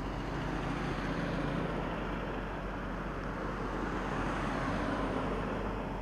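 Cars driving past on fresh asphalt: steady tyre and engine noise that swells as each vehicle goes by.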